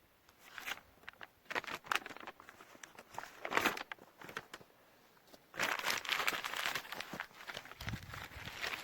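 Paper from an old notebook being crumpled and torn by hand to make tinder: scattered short crinkles at first, then a denser stretch of crinkling from about five and a half seconds in.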